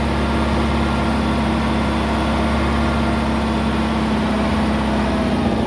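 Old compact tractor's engine running steadily at a constant speed.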